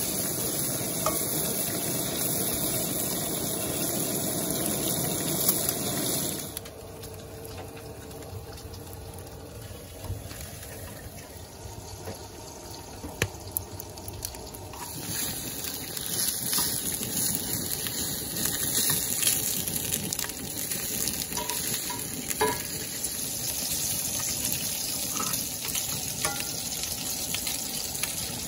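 Bacon sizzling and spitting in a cast iron skillet. About six seconds in the sizzle drops suddenly to a quieter hiss with a few sharp crackles, then loud sizzling with scattered pops returns about fifteen seconds in.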